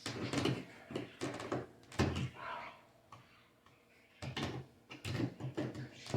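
Metal clip tabs on a shipping crate being worked with pliers: irregular scrapes, clicks and rattles in two spells, with a short pause between them.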